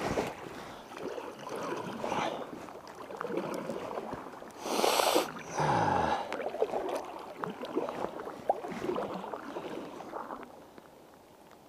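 Kayak paddle strokes dipping and splashing in pond water, in an uneven rhythm, with one louder burst of noise about five seconds in. The strokes quieten near the end.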